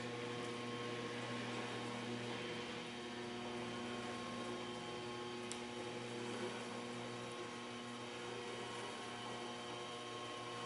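Lantech Q300 turntable stretch wrapper running: a steady electric motor hum made of several steady tones, with no change in speed.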